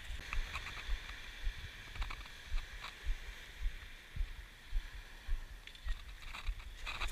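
Footsteps crunching over beach pebbles, about two a second for the first few seconds, then fewer. A steady wash of surf breaks on the shore underneath, with irregular low rumbles.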